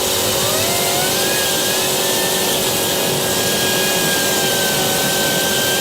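Homemade propane jet engine running: a loud jet rush with a whine that rises over the first second and a half as the turbine spools up, then holds steady.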